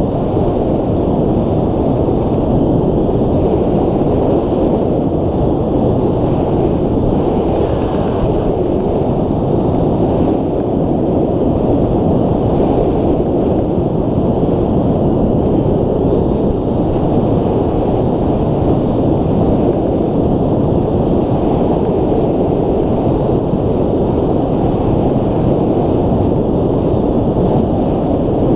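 Steady, heavy rush of airflow buffeting the microphone of a camera mounted on a hang glider's wing in flight.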